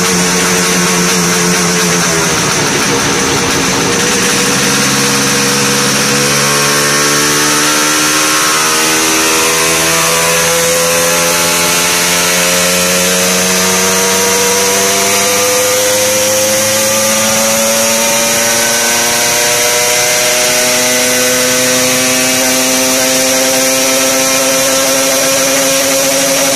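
Yamaha RD250's two-stroke twin running on a chassis dyno through homemade expansion-chamber exhausts. The revs drop briefly about two seconds in, then climb slowly and steadily for the rest of the time, a long gradual run up the rev range.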